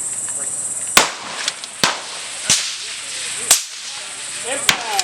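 About five sharp, short cracks of suppressed centre-fire rifle shots at uneven intervals, roughly a second apart, over a steady high insect drone.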